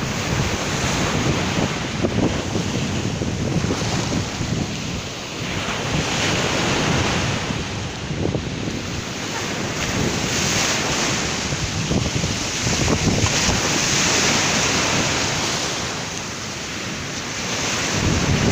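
Sea waves crashing hard on the shore, the wash swelling and easing every few seconds, with wind buffeting the microphone.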